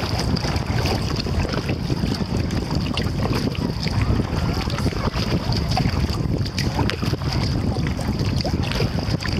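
Kayak being paddled: wind rumbling on the microphone, with the splash and drip of the paddle blades dipping in and out of the water. A steady high-pitched hiss sits above it.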